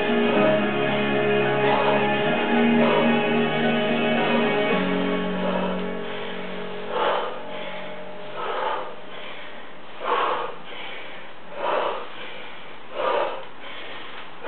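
Background music with guitar and singing that thins out about halfway through. From then on come short, noisy breaths about every one and a half seconds, five in all: the lifter's hard exhalations with each barbell squat rep.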